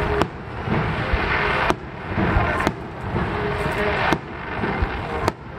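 Aerial firework shells bursting: five sharp bangs, each roughly a second to a second and a half after the last.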